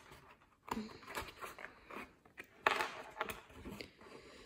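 Chipboard box pieces being handled and pressed together on a table: irregular light creaks, scrapes and taps of the board, the loudest about two and a half seconds in.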